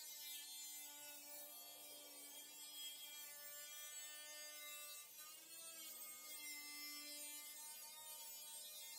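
Faint whine of an angle grinder's cut-off wheel cutting through the sheet-steel side of a pickup bed, a steady pitched tone that sags briefly about five seconds in as the wheel bites.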